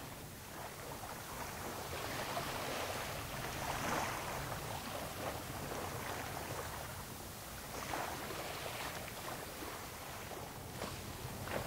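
Wind on the microphone with washes of small waves lapping against a stone shoreline, swelling and fading several times.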